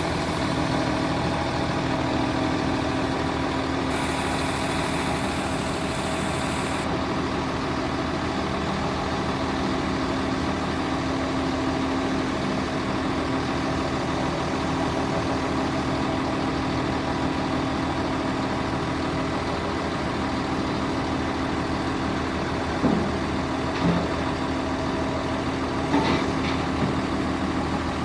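Cummins ISB diesel engine of a 1999 Gradall wheeled excavator idling steadily. A hiss joins it for about three seconds near the start, and a few short knocks come near the end.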